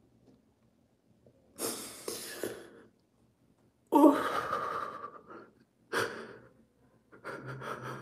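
A woman sobbing: four ragged, gasping sobs with near silence between them. The loudest, about four seconds in, breaks into a voiced cry.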